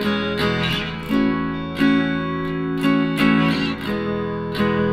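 Background music: strummed guitar chords over a steady beat of sharp ticks.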